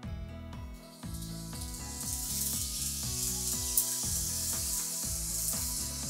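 Background music with a repeating bass line. A steady high hiss joins it about a second in.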